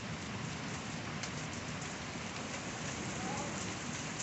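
Steady rain falling on pavement and grass during a hailstorm, an even hiss.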